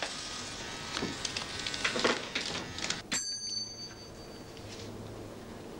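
Irregular clicks and rustles, then a desk call bell struck once about three seconds in, ringing with several high tones that fade over about a second and a half.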